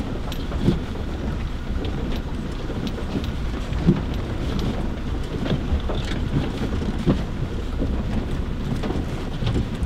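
Toyota Hilux crawling down a rough, rocky track in first gear: a steady low rumble of engine and tyres on stones, broken by a few sharp knocks as the truck bumps over rocks.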